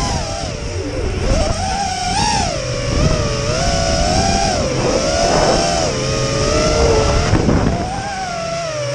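Whine of a small quadcopter drone's propellers in flight, its pitch wavering up and down continuously as the motors speed up and slow down.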